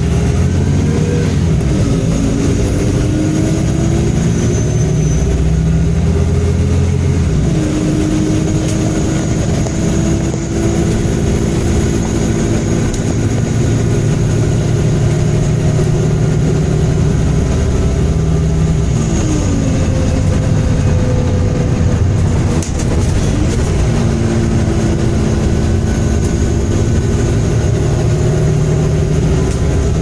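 Diesel engine of a MAN Enviro 300 single-deck bus running under way. Its note climbs slowly and then drops back suddenly several times as the bus changes gear.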